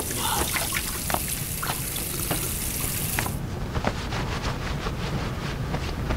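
Water running from a bathroom sink tap, a steady hiss that cuts off suddenly about three seconds in, with a few light clicks and knocks.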